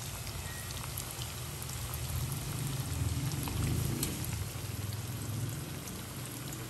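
Cornstarch-dredged chicken pieces deep-frying in hot oil in a stainless steel pot: a steady, rain-like sizzle with small crackling pops as the freshly added pieces go through their first fry. A low hum runs underneath.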